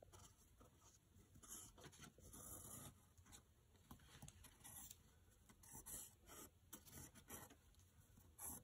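Faint scratching of a pencil on paper as it is drawn around the edge of a cut-out letter stencil, in short, uneven strokes.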